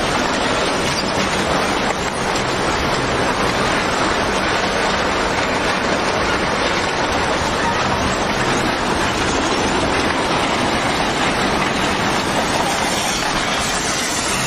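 Tsunami flood water surging through a wrecked town and carrying the debris of wooden houses: a loud, steady rushing noise that goes on without a break.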